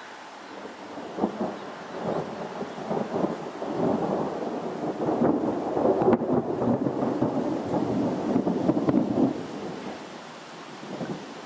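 A peal of thunder that rumbles and crackles. It builds about a second in, is loudest through the middle, and dies away about ten seconds in, with a short last rumble near the end, over a steady background hiss.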